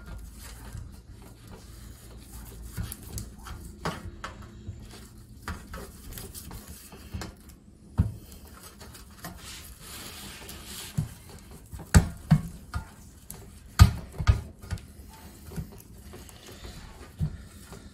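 A block of butter rubbed over a stainless steel baking tray to grease it: a soft, steady smearing against the metal. Several sharp knocks come through it, the loudest about eight, twelve and fourteen seconds in.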